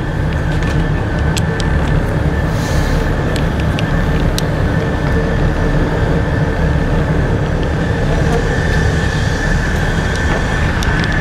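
Tugboat's diesel engines running steadily: a low drone with a thin, steady high whine over it.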